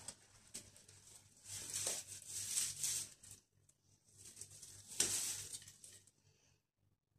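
Rustling of fabric and doll clothing as hands rearrange a doll and its bedding in a wicker Moses basket, in two spells: from about a second and a half to three and a half seconds in, and again around five seconds, with a faint low hum underneath.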